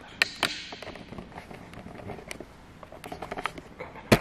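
Irregular sharp clicks and small knocks, with a brief hiss early on and one loud sharp knock near the end.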